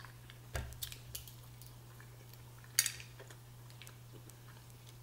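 Metal spoon clinking against a glass bowl of butter sauce: a knock about half a second in, a few small ticks just after, and one sharp clink near three seconds.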